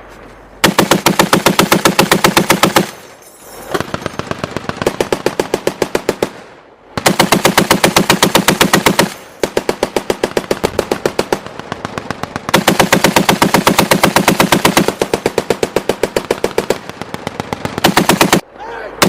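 Browning M2 .50 calibre heavy machine gun firing a series of sustained bursts of rapid, evenly spaced shots. Each burst lasts two to three seconds, with short pauses between them, and the bursts are alternately louder and quieter.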